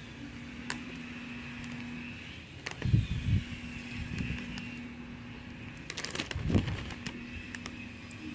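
Oreo cookies and their packaging being handled and set down: a few clicks and soft knocks about three seconds in and again around six seconds, over a steady low hum.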